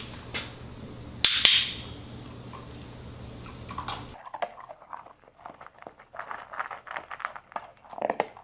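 A puppy chewing and crunching kibble, a quick irregular run of crunches that starts about four seconds in. Before that there is a brief loud rustle about a second in, over a steady low hum.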